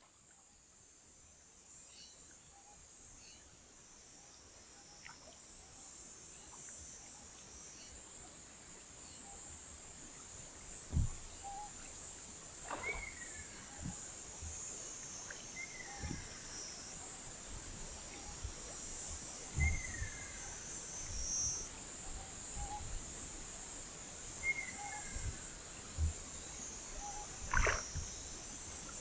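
Ruddy kingfisher calling: a falling whistled call repeated every four or five seconds, over a steady high-pitched insect chorus. Faint short notes and occasional low thumps sound underneath.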